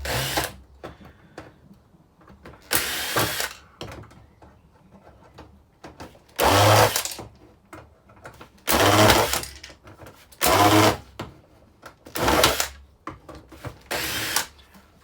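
Cordless drill-driver unscrewing the screws from a flat-screen TV's casing, in about seven short bursts of motor run, each half a second to a second long, with small clicks of handling in between.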